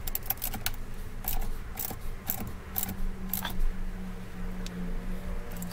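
Irregular metallic clinks of a washer and nut being fitted onto a battery terminal stud and a small hand ratchet wrench set on it, mostly in the first few seconds; a steady low hum runs underneath.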